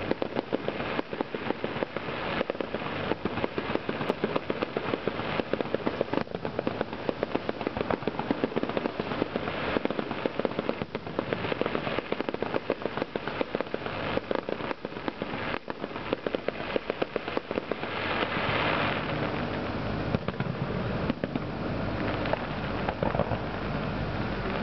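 Aerial fireworks bursting overhead: a dense, rapid run of bangs and crackling reports, many each second.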